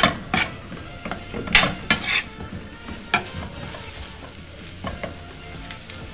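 Chicken pieces sizzling in oil in a non-stick frying pan while a utensil stirs and turns them. It scrapes and knocks against the pan several times, mostly in the first three seconds.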